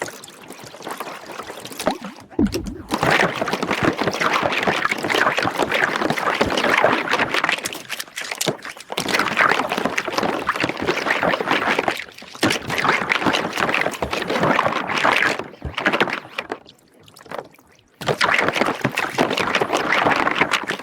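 Soapy water bubbling and sloshing in stretches of a few seconds with short pauses between them, a dense crackle of popping bubbles.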